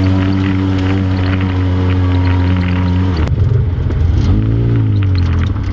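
ATV engine running at a steady pitch, then about three seconds in the note drops and it revs up and back down once.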